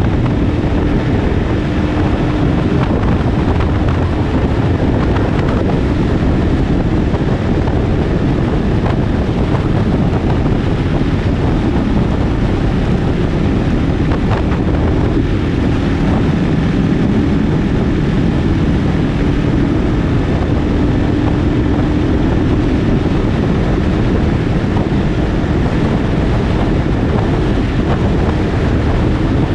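Wind rushing over a GoPro microphone on a moving motorcycle, with the engine's steady tone faintly underneath, rising and falling slightly in pitch.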